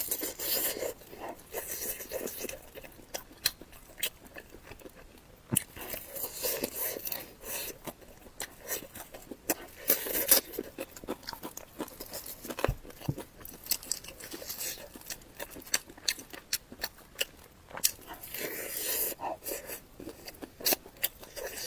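Close-miked eating sounds: a person biting and chewing, with irregular wet clicks, smacks and crunchy bursts that come in clusters and pauses.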